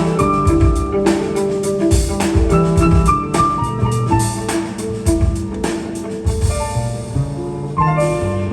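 Jazz piano trio playing: piano notes over bass and a drum kit, with frequent drum and cymbal hits.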